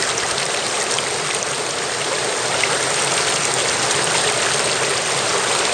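Shallow mountain stream flowing over stones: a steady rush of water.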